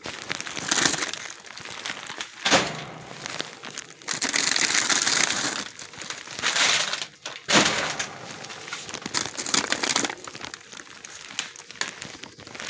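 Plastic bags and packing liner in a shipping box crinkling and rustling as they are handled and pulled out. The crackle is irregular and comes and goes, loudest for a couple of seconds around the middle.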